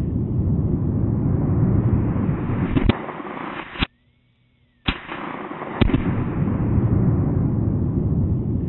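Tannerite (Binary X) target inside a snowman exploding, replayed: a long, low rumbling boom with a few sharp cracks. The sound cuts out for about a second midway, and the blast starts over.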